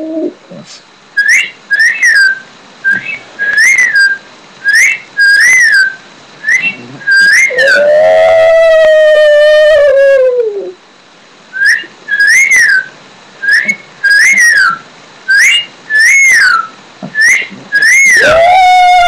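A shih tzu howling, two long howls that waver and then fall away at the end, one near the middle and one starting just before the end. Between them runs a steady string of short, high whistles, each rising and falling in pitch.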